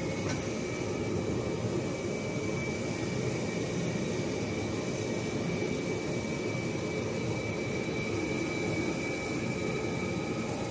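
Industrial machinery running steadily: a constant whooshing hum with a thin, high-pitched whine held over it.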